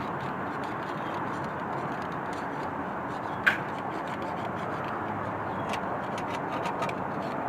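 Steady background noise with one sharp click about halfway through and a few light ticks later, from hand work at an engine.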